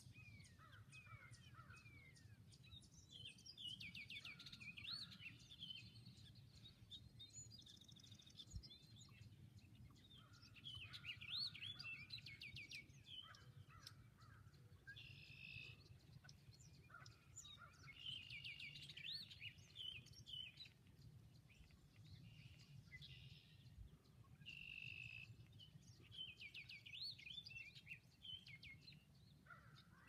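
Red-winged blackbirds singing, faint, their song phrases with quick up-and-down notes coming every few seconds and sometimes overlapping. A low steady rumble lies underneath.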